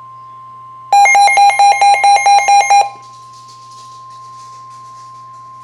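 NOAA Weather Radio warning alarm tone, a steady single tone near 1050 Hz, signalling that a warning broadcast follows. From about a second in until near three seconds, a loud electronic beeping, about five beeps a second, sounds over it, with a low hum underneath.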